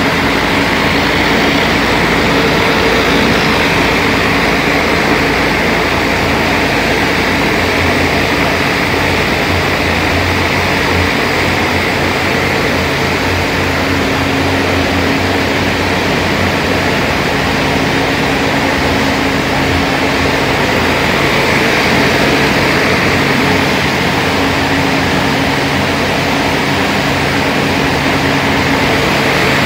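Pressure washer running steadily: an engine's even hum under the hiss of water jets from a rotary surface cleaner spraying a concrete floor.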